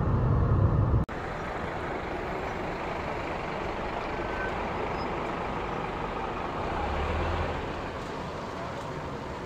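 Low road rumble inside a moving car, cutting off suddenly about a second in. It gives way to steady city street traffic noise, with a city bus moving past close by and a low engine swell near the end.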